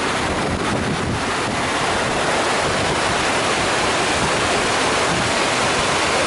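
Snowmelt waterfall pouring over granite boulders under a snow tunnel: a steady, really loud rush of water.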